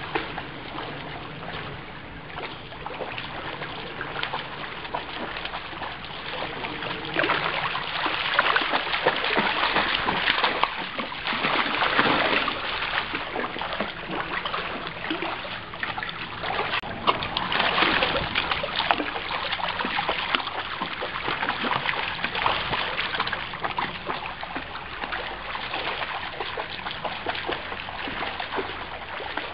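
Shallow river rushing over stones, with splashing from a Samoyed wading through the water; the water noise swells louder for a few seconds around the middle.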